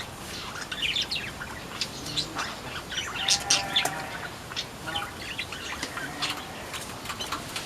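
Pleci (white-eyes) in an aviary chirping and twittering in quick, high-pitched runs, busiest about three to four seconds in.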